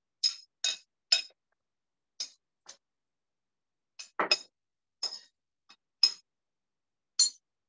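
A metal utensil clinking against a dish: about eleven short, sharp clinks at irregular intervals, with a heavier knock about four seconds in.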